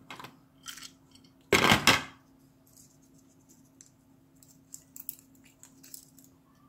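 A walnut shell cracking in a hand-squeezed aluminium walnut cracker, a loud crunch in two quick parts about a second and a half in, after a few light clicks of the tool being handled. Then faint crackles and clicks as the broken shell pieces are picked off the kernel by hand.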